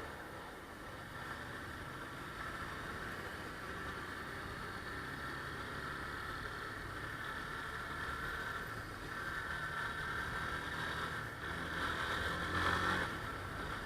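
Motorcycle engine running in city traffic with road and wind noise, swelling louder briefly about twelve seconds in.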